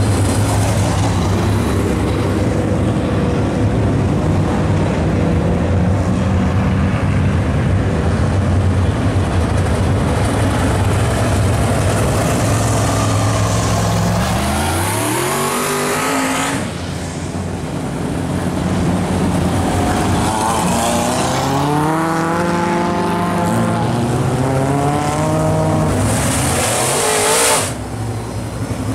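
Dirt-track race car engines running at low speed as the cars roll past on a slow lap. They give a steady low rumble at first, then several engines rev up and rise and fall in pitch as cars go by. The sound breaks off suddenly twice.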